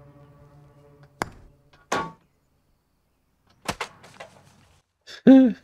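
A putter tapping a golf ball, then the ball knocking and clanking against the metal framework of a toppled tower in a few scattered sharp hits with pauses between. Near the end a voice cries out loudly.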